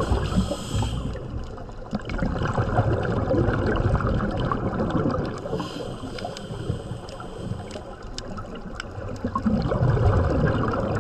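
Water sloshing and bubbling around a camera in the sea during a scuba dive, a steady muffled rumble. Short hisses come near the start and again about six seconds in.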